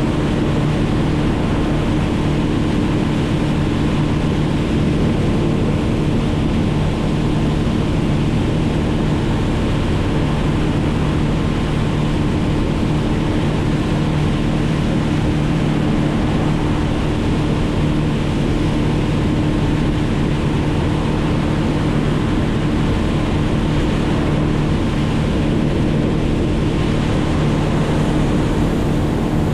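A small engine running steadily at one speed: an even drone with no change in pitch, over a rushing wind or water noise.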